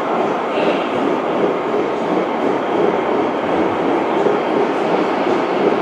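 Gauge 1 model train running on the layout's track: a steady rolling noise of metal wheels on rail.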